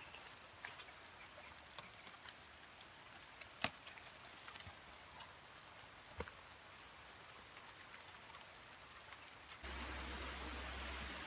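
Quiet night forest with scattered sharp ticks and a faint, thin, high insect-like tone for the first few seconds. Near the end a steady water hiss starts abruptly and is louder than anything before it.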